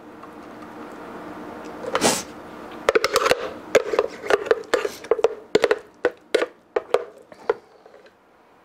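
A spatula scraping and knocking inside a plastic blender jar as thick pudding is scooped out: a short scrape about two seconds in, then a quick run of about a dozen sharp taps over the next four seconds.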